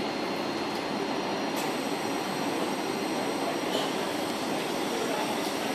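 Steady hum and hiss of a Thameslink electric multiple unit standing at the platform, with a faint steady high whine over it.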